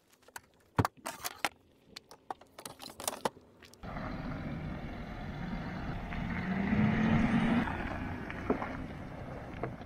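A few small clicks and knocks as something is handled at the windscreen, then a Land Rover Discovery 3 with its 2.7-litre TDV6 diesel drives along a gravel track past the microphone: engine and tyre noise on the gravel grow to a peak about seven seconds in and then fade.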